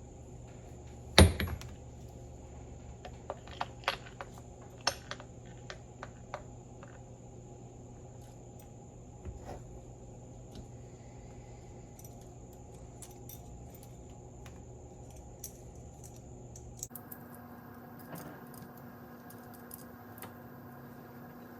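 Small steel ball bearings clicking against metal as they are put back one by one into the ball nut of a 1978 Ford recirculating-ball steering box. One sharp click about a second in is the loudest, then a run of lighter ticks over the next few seconds, growing sparse later.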